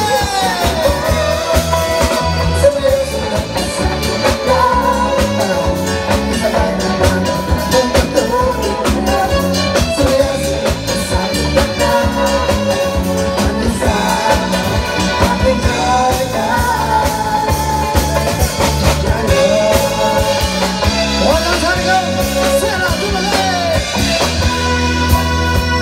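Live band playing with singers singing through microphones and a PA: vocals over drum kit, electric bass and keyboard, with a steady dance beat.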